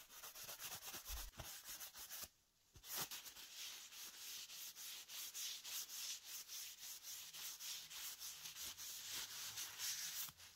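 Paper towel rubbing over a wooden screwdriver handle, wiping on linseed oil varnish: a quick run of dry scuffing strokes, several a second, with a short pause about two seconds in.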